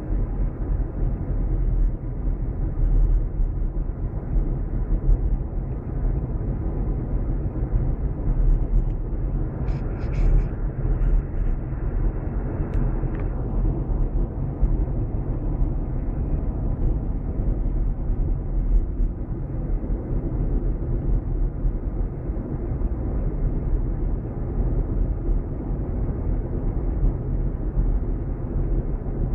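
Car driving on a paved road, heard from inside the cabin: a steady low rumble of road and engine noise, with a brief higher hiss about ten seconds in.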